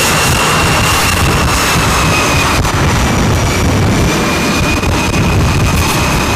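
F/A-18 jet engines running loud and steady, a high turbine whine held over a heavy rumble.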